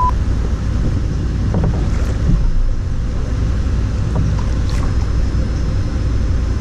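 Steady low wind rumble buffeting the camera microphone, with a few faint knocks.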